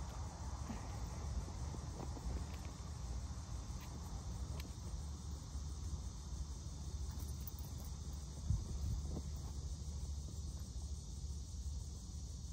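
Steady outdoor insect chorus over a low rumble, with a few faint rustles and clicks and one soft knock about eight seconds in.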